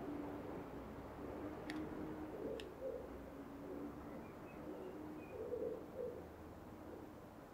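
A pigeon cooing faintly in short phrases of soft low coos, twice, with two brief clicks about two seconds in.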